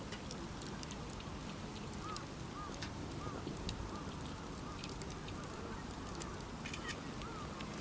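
Wood campfire crackling with scattered sharp pops over a steady low rumble. From about two seconds in, a run of short faint calls repeats about twice a second.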